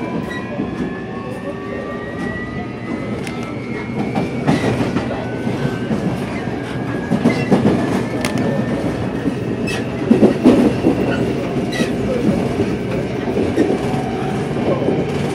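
Seoul Metro Line 4 electric train running, heard from inside a carriage. A motor whine of several thin tones rises in pitch over the first few seconds as the train gathers speed, over a steady rumble, with wheels clattering and clicking on the rails. The clatter grows louder in the middle and is strongest about ten seconds in.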